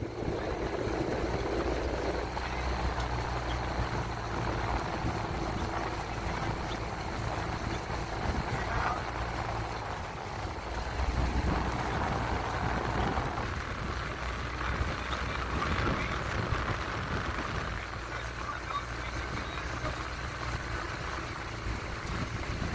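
Steady low hum of a small motorboat running alongside, over a constant wash of water splashing from the hull and the dragon boat paddles.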